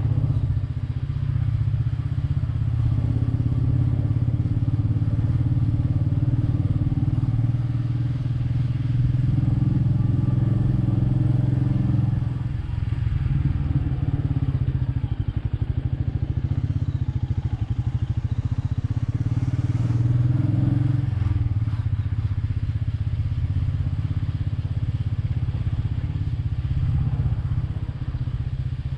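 Royal Enfield Meteor 350's single-cylinder engine running steadily under way, its note dipping briefly about twelve seconds in and shifting again around twenty seconds.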